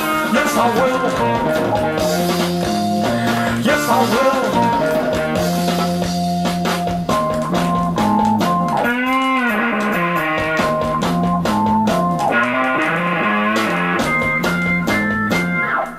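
1970 prog rock playing from a vinyl LP on a turntable: a loud instrumental band passage with drums, and a note that bends down and back up about nine seconds in.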